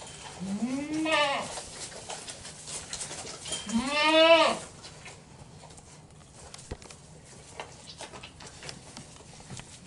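Goat kid bleating twice, each call rising and then falling in pitch; the second, near the middle, is longer and louder. Faint rustling and clicks follow.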